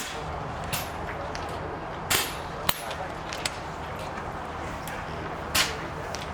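PCP air rifles firing along the bench line: about six sharp shots at irregular intervals, the loudest about two seconds and five and a half seconds in, over a steady low hum.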